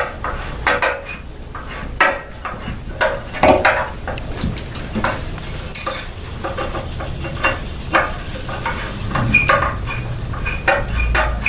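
Hand tools clinking and clicking against the metal chain guard and its mounting bolts as the bolts into a 212 kart engine's crankcase cover are tightened: irregular clinks and a few sharper knocks, with brief metallic ringing near the end.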